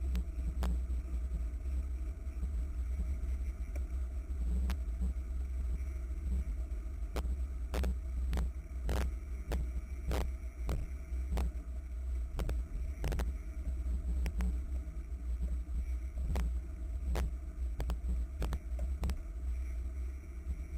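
Wind buffeting the microphone of a camera mounted on a moving racing bicycle: a steady low rumble, with irregular sharp clicks and knocks from the bike and its mount jolting over the road.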